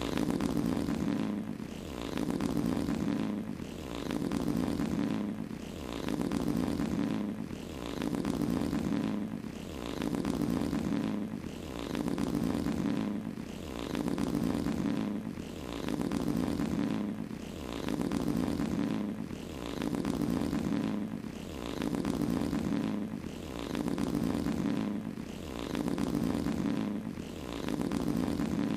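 Long fart sound effects, one after another, repeating about every two seconds, each with a low, buzzing pitch.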